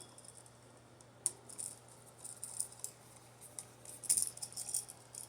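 Small metallic clicks and rattles of a screwdriver working a wall receptacle's terminal screw as a wire is fastened under it. A sharp click comes about a second in, then scattered clicking and rattling, busiest around four seconds in.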